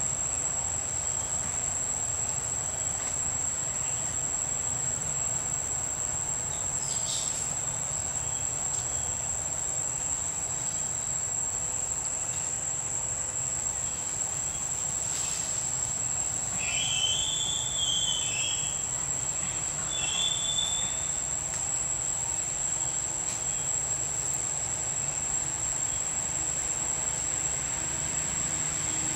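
Steady, unbroken high-pitched insect drone of crickets or cicadas in tropical forest, over a low rumble. Two short high calls break in a little past halfway.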